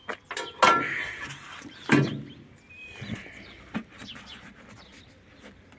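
A few sharp knocks and clinks from hands working a metal fitting under a truck; the loudest are about half a second and two seconds in, with fainter taps after.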